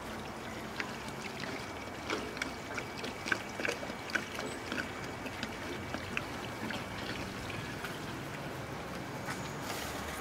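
Water poured from a plastic bottle into a clay plant pot, trickling, with a scatter of small sharp drips and splashes in the middle of the pour.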